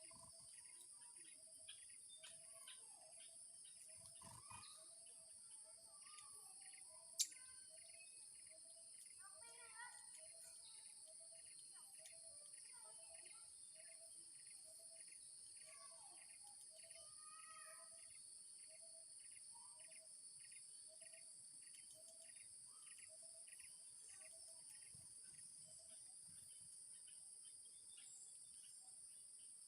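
Faint steady high-pitched insect drone, with a bird repeating a short low note about every two-thirds of a second and thinner chirps above it. One sharp click about seven seconds in.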